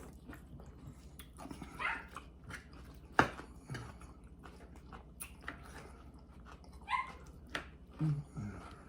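Quiet eating at a dinner table: scattered sharp clicks of cutlery on plates and chewing, with a few short high-pitched whimpers or yips about two seconds in and again near the end.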